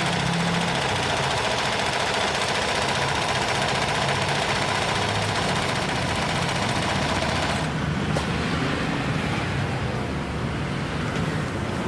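Janome NS385 flatbed sewing machine, driven by its external motor, running steadily as it sews a zigzag stitch. The stitching stops about eight seconds in.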